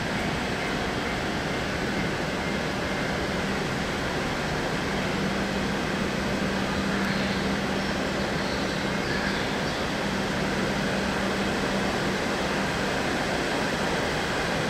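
Steady mechanical drone with a constant low hum, the background of a railway station's tracks, with no change or sudden event.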